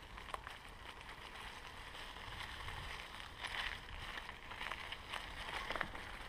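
Scott Scale 970 hardtail mountain bike rolling over a narrow trail covered in dry leaves and twigs: tyre noise on the leaf litter with scattered rattles and clicks from the bike and brushing vegetation, over a steady low rumble of wind on the microphone.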